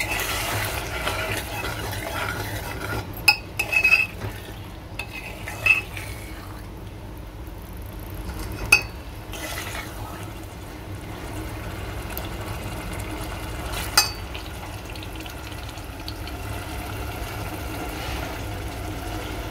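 A steel spoon stirring a thick potato-and-pea curry in a metal pot, scraping through the gravy and clinking sharply against the pot's side about five times, over a steady low sizzle from the cooking curry.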